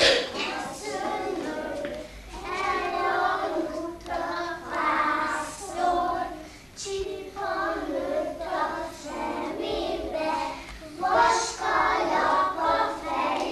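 A group of young children singing a song together, joined by a woman's voice, in steady sung phrases with short breaths between them.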